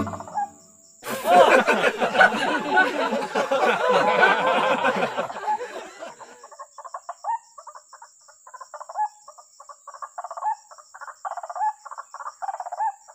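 White-breasted waterhen calls: a loud tangle of many overlapping calls starts about a second in and lasts some five seconds, then gives way to quieter short notes repeated in quick runs.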